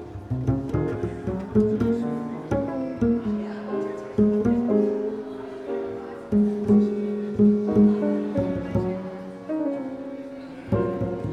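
Jazz played on piano and double bass: plucked bass notes under piano chords and melody.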